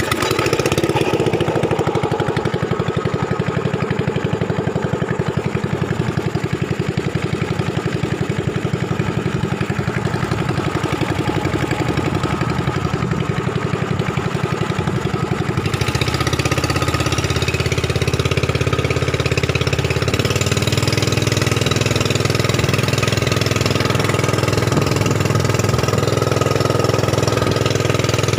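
A Yamaha MZ300 single-cylinder four-stroke petrol engine drives a longtail boat propeller, running steadily under way. About halfway through its sound steps up and gets a little louder and fuller.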